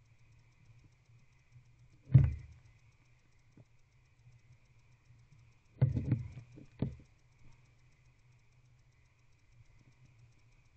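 Barn owl shifting about on the floor of a wooden nest box: a sharp thud about two seconds in, then a quick cluster of knocks and scrapes around six seconds in, over a faint steady hum.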